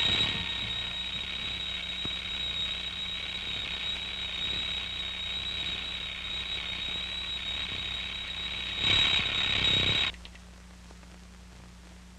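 Night ambience of crickets: a steady high trill over hiss, with a louder swell just before it cuts off suddenly about ten seconds in, leaving only a faint low hum.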